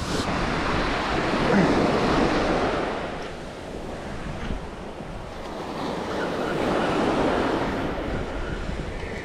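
Ocean surf breaking and washing up a sandy beach, swelling loud twice with a lull between, with wind buffeting the microphone.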